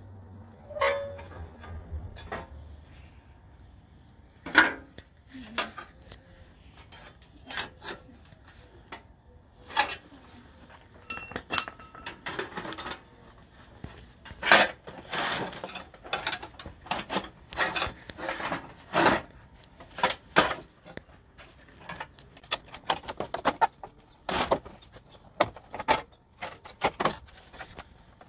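Irregular metallic clinks, clanks and knocks of metal parts and tools being handled, some ringing briefly.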